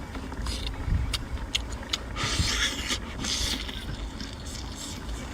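Eating noises: chewing with scattered clicks and a rasping scrape about two seconds in, over a steady low rumble.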